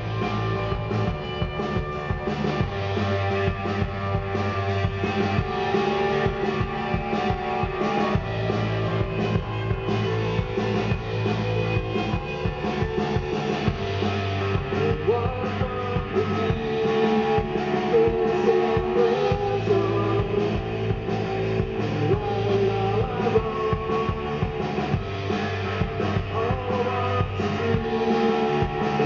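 Live indie rock band playing: two amplified electric guitars over a drum kit, steady and full throughout.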